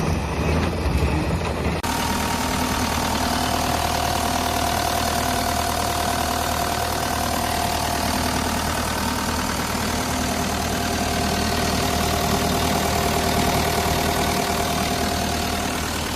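Kubota V2403 four-cylinder diesel of a Bobcat 435 mini excavator running steadily at idle, with a steady high whine on top. The sound changes abruptly about two seconds in.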